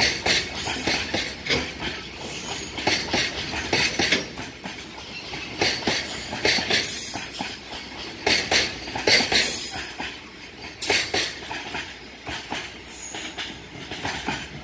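Loaded container wagons of a freight train rolling past, their wheels clacking in repeated clusters over the track, with a high hiss.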